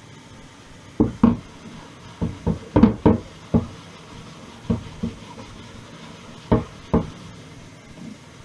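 About a dozen sharp knocks and thumps in irregular clusters as hard kitchen items are handled and set down, over a steady low hiss.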